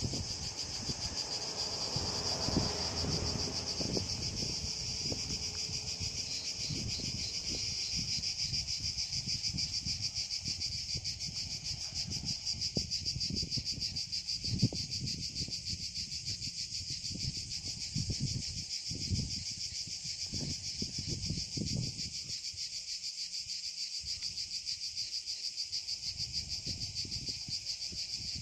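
A dense chorus of cicadas buzzing steadily, one high continuous drone with a fast pulse. Irregular low rumbles and thumps run underneath.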